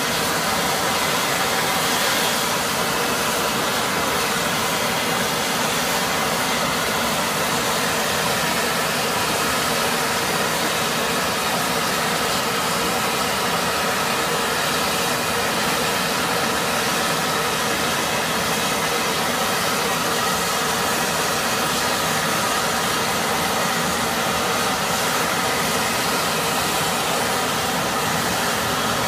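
Thermal steam vent in the ground hissing steadily as steam jets out, an even rushing noise that never pauses or changes.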